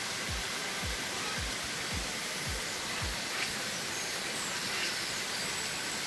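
Steady rush of water spilling over a small weir into a pond, with a few faint bird chirps about halfway through. Soft low thumps, about two a second, run under it for the first half.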